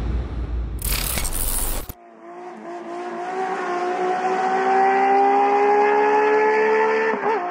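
Electronic music ends about two seconds in with a noisy swoosh. A race car sound then fades in: a steady pitched tone that rises slowly in pitch for about five seconds, wavers briefly near the end and fades away.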